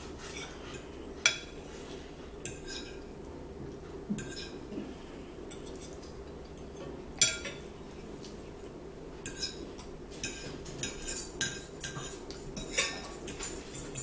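Metal forks clinking and scraping against dinner plates as two people eat, in separate sharp clicks that come more often in the second half.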